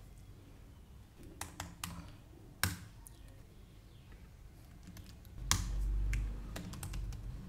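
Computer keyboard keystrokes, a handful of scattered clicks rather than steady typing, the sharpest about two and a half seconds in. A brief low rumble comes in about five and a half seconds in.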